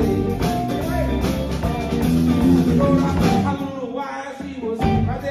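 Live rock band playing: electric guitars, bass guitar and drum kit. About four seconds in the bass and drums drop away briefly, then come back in with a hit.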